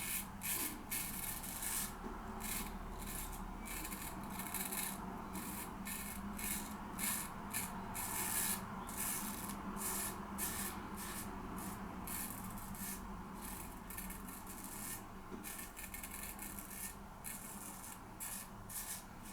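C.V. Heljestrand lather catcher straight razor scraping through lathered three-day stubble in short repeated strokes, about two a second.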